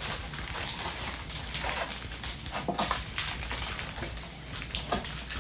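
Sealed foil trading-card packs crinkling and rustling as they are shuffled by hand, with many short, irregular crinkles and light taps.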